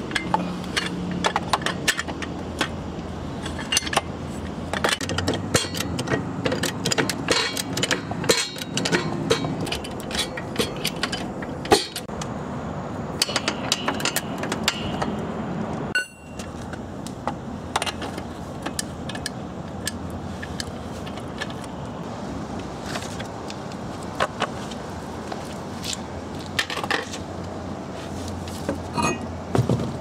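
Steel lug wrench with a pipe extension clinking against the wheel's lug nuts as they are worked loose and turned off: a long run of sharp metallic clicks and clinks, with a sudden brief dropout about halfway through.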